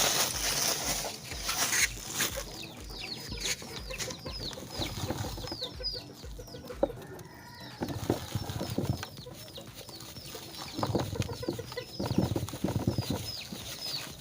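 Young chicks peeping: a steady run of short, high cheeps, each falling in pitch. A rustle near the start and a few low knocks of handling come with them.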